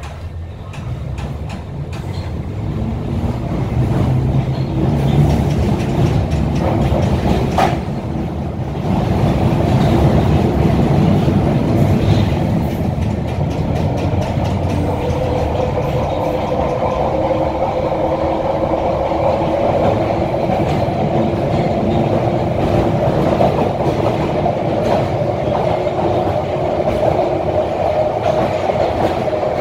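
Bakerloo line 1972 Stock tube train pulling away from a station and running through a tunnel, heard from inside the carriage. The rumble builds over the first few seconds, then holds steady, and a whine comes in about halfway and rises gently.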